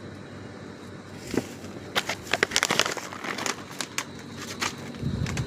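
Dry cat food kibble clicking and rattling: a quick, irregular run of sharp clicks starting about a second in, with a low thud near the end.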